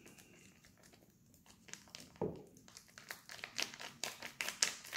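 Plastic sachet crinkling as it is squeezed and folded to press the thick aloe vera gel out into a plastic shaker. It is quiet at first; from about a second and a half in comes a run of sharp crackles that grows busier toward the end.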